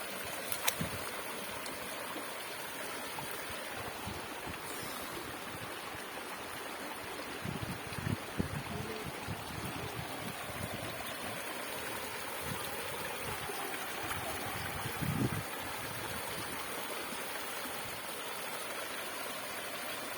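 Water from a low cascading waterfall rushing steadily over rocks, with a few soft low knocks about eight and fifteen seconds in.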